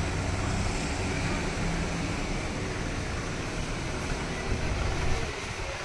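Steady background noise of a busy indoor hall: an even hum with faint voices underneath.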